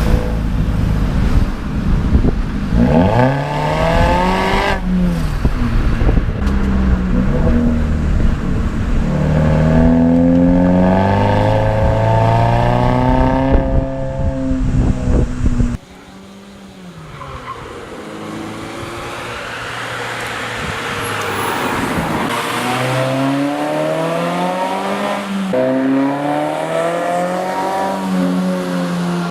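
Mazda 3 engine with an aftermarket exhaust and intake accelerating hard through the gears. The pitch climbs steadily, then drops at each upshift. About halfway through it cuts suddenly to a quieter, thinner sound that climbs through further gear changes.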